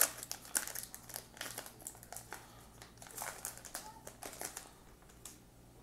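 Crinkling of a trading card pack's crimped plastic wrapper as it is handled, a dense run of crackles that is loudest at first, thins out and stops about five seconds in.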